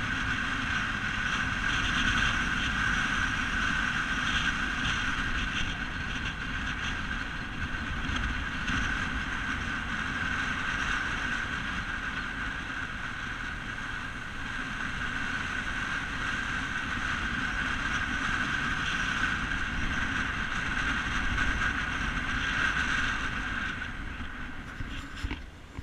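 A car driving along a road: steady tyre, wind and engine noise, dropping off near the end as it slows.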